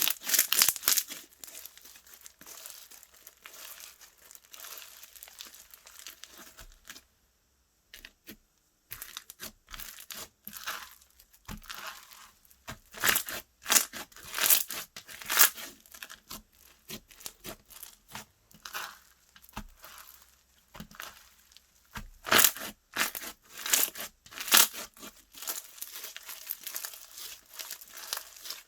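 Slime being stretched, folded and squished by hand, giving clusters of crackling and popping, with a short pause about seven seconds in.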